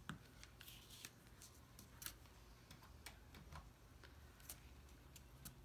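Near silence with faint, irregular ticks and light taps of fingers pressing and handling folded cardstock on a cutting mat.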